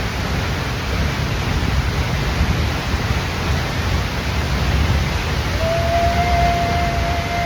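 Waterfall rushing, a loud steady wash of falling water. Near the end, one long, steady, high tone is held for about two seconds over it.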